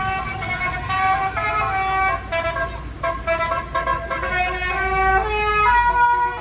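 A bus's Basuri 'telolet' musical air horn plays a quick tune of stepped notes. A low engine rumble runs underneath and stops near the end.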